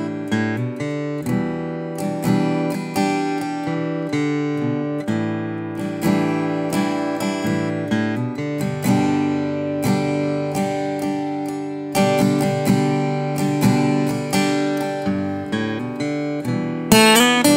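Furch Little Jane LJ10-CM travel acoustic guitar, with a western red cedar top and African mahogany back and sides, played solo with the fingers. It runs through a flowing line of picked notes and ringing chords, and the chords turn brighter and louder near the end.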